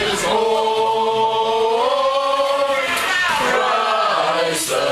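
A group of streetcar passengers singing a Christmas carol together, holding long notes, the melody stepping up in pitch about two seconds in.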